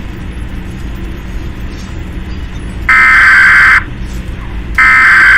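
Emergency Alert System header data bursts: loud, harsh buzzing blasts about a second long, two of them about a second apart, starting about three seconds in. Under them runs a low, steady noisy hum that cuts in suddenly at the start.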